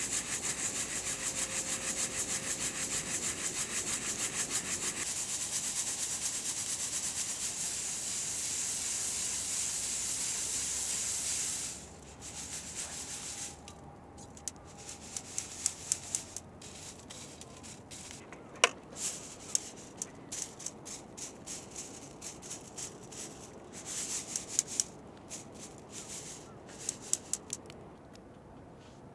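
Rapid, steady rubbing or rasping for about twelve seconds that stops suddenly, followed by scattered small clicks and taps.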